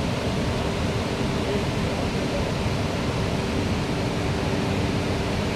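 Steady rushing noise of Victoria Falls, a huge waterfall's water thundering down, heard as an unbroken wash of sound.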